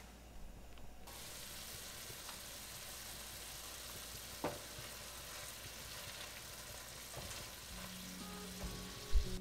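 Diced eggplant and ground meat frying in a pan, sizzling steadily, with a single knock about four and a half seconds in.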